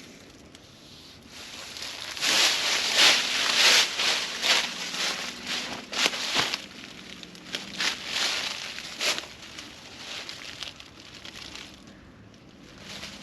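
Irregular rustling and crunching with a few sharp crackles, loudest from about two to nine seconds in.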